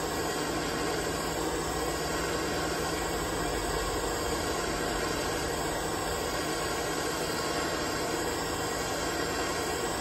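Handheld gas torch burning with a steady rushing hiss as its flame heats a copper-to-stainless pipe joint for soft soldering.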